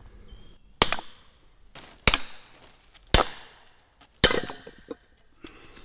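A heavy hammer strikes the back of a Gränsfors Bruk froe four times, about a second apart, driving the blade down into an ash round to split it through the centre for a shingle. Each blow is a sharp crack with a short ring after it.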